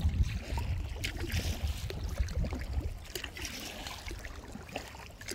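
Sea water lapping and splashing against the hull of a moving inflatable kayak, in irregular small splashes, over a low rumble that eases off after about three seconds.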